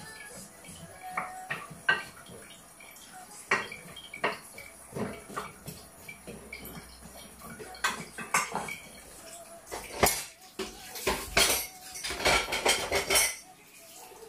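Dishes and cutlery clattering and clinking on a kitchen counter: scattered knocks at first, then a denser, louder run of clatter from about ten seconds in that stops just before the end.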